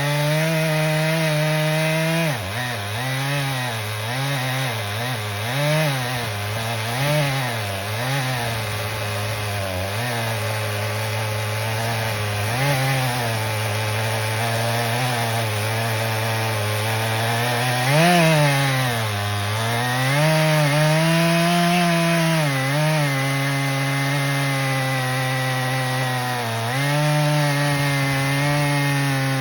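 Stihl MS 881 two-stroke chainsaw cutting through a large maple log. Its engine pitch dips and wavers as it bogs under load in the cut and picks back up, with a brief rev and sharp drop about two-thirds of the way through.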